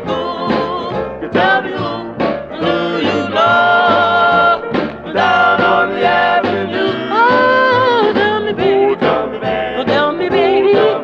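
Doo-wop vocal group record: several voices singing held harmonies without clear words over a steady, even bass beat.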